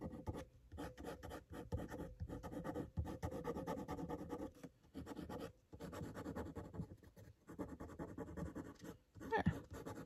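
Pen nib scratching on paper in quick, short hatching strokes, in runs broken by brief pauses.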